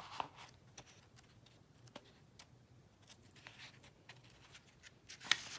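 Pages of a paperback book being leafed through by hand: faint, scattered paper rustles and flicks, with a louder one near the end.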